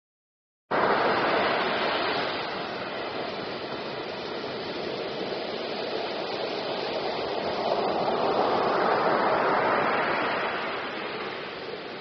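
Ocean surf: waves breaking and washing up on a beach, a steady rush of water. It cuts in suddenly about a second in and swells louder near the end as a larger wave breaks.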